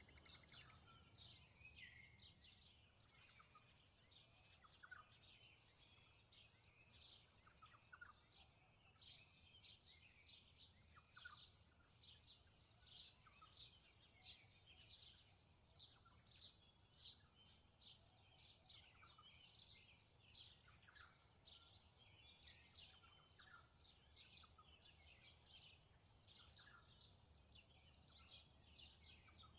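Faint birdsong in a field: many short high chirps from several small birds, several a second, over a steady high hiss and a low rumble.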